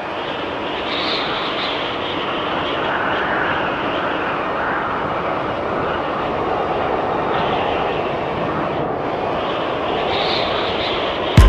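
Steady rushing noise with no clear pitch, fading in at the start and swelling gently now and then.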